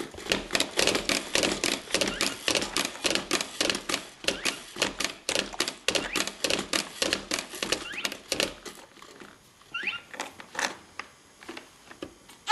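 Rapid, rhythmic clicking and tapping, several strokes a second, from a baby bouncing in a Johnny Jump Up doorway jumper. The clicking thins out after about eight seconds, and a brief rising squeak comes near the end.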